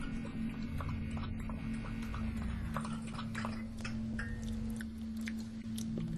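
An animal eating or licking from a bowl, wet clicking and chewing sounds that come thick and irregular from about halfway through, over a steady low electrical hum; a high tone slides down about two seconds in.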